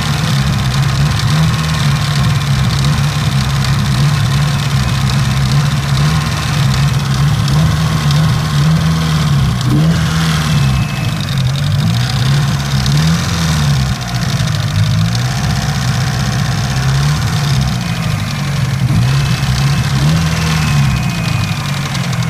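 Mitsubishi Lancer Evolution IX's turbocharged 4G63 inline-four running near idle, its speed rising and falling slightly every second or two, with a repetitive engine noise that appears only once the car has been driven a few miles; the owner cannot tell whether it is valve tick or rod knock.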